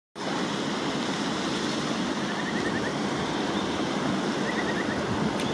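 Steady rushing of a river flowing, an even wash of water noise with no break.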